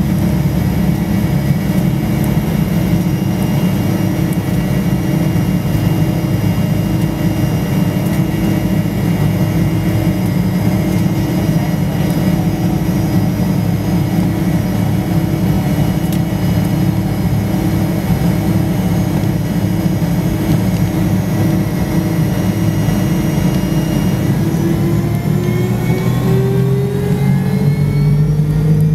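Rolls-Royce Tay turbofan on the rear fuselage of a Fokker 70, heard from inside the cabin beside it. It runs at a steady low power with a drone and a steady whine. From about 24 seconds in, its whine tones start rising together as the engine spools up toward takeoff thrust.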